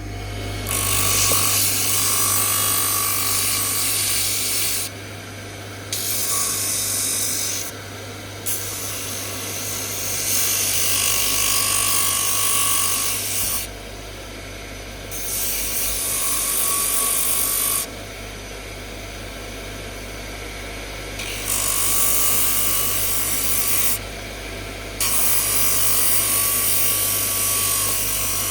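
A power tool runs steadily while a workpiece is pressed against it in six passes of a few seconds each, with short gaps where only the motor hum is left. This is typical of sanding or grinding the knife.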